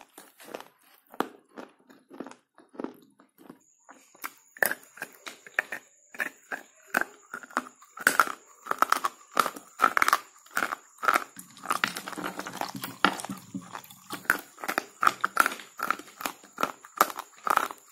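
Slate pencil being bitten and chewed: dry crunches, a few scattered ones at first, then rapid crunching from about four seconds in.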